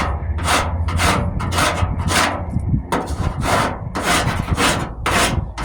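Surform rasp scraping hardening Bondo body filler on a truck's wheel arch, about ten rhythmic back-and-forth strokes at roughly two a second, with a brief pause a little before halfway.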